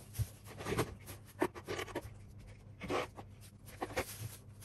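A hand rubbing flour through a plastic mesh sieve into a bowl: irregular rubbing strokes on the mesh.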